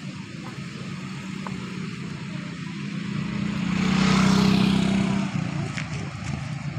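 A motorcycle passing close by, its engine note swelling to a peak about four seconds in and then falling away as it moves off.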